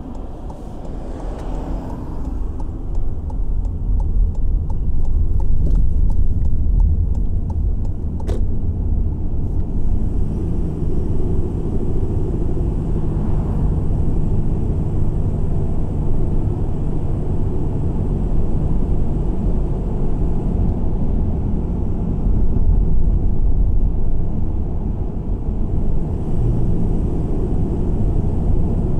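A car driving, with a steady low rumble of road and engine noise. One sharp click comes about eight seconds in.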